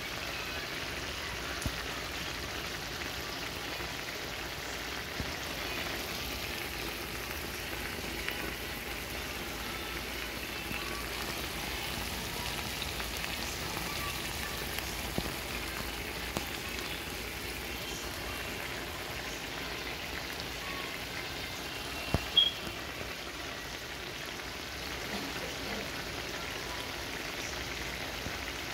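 Food sizzling and bubbling as it simmers on a stove, heard as a steady crackling hiss with scattered small pops. A couple of sharp clicks about three-quarters of the way through are the loudest sounds.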